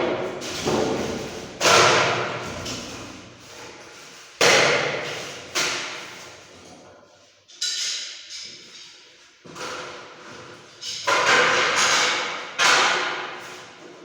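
Hammer blows during fitting of an air-conditioner mounting bracket, about nine or ten strikes spaced irregularly a second or two apart. Each strike rings out and echoes for about a second.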